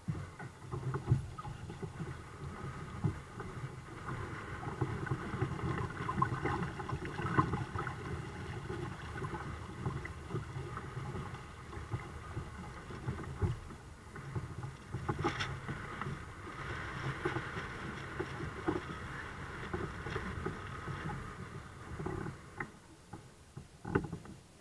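Water rushing and lapping against the hulls of a twin-kayak sailing catamaran under way, with a few sharp knocks, one about fifteen seconds in and one near the end.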